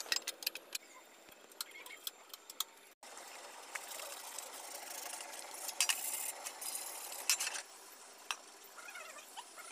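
Hand work on small steel parts: a few light metal clicks and clinks, then a few seconds of rough scraping or scrubbing on metal.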